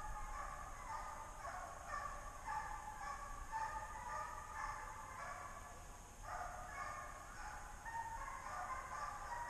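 A pack of deer hounds baying, many voices overlapping and calling without a break, the sound of the dogs running a deer on a drive.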